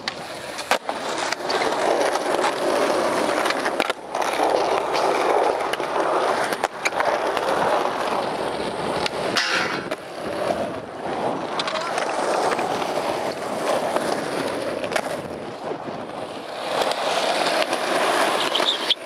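Skateboard wheels rolling over concrete, with sharp clacks of the board popping and landing scattered through. There is a brief higher scrape about halfway through.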